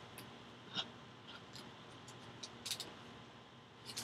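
Faint handling of baseball cards by hand: a few soft clicks and rustles as the cards slide and are flipped over, with a small cluster of clicks near the middle and another near the end.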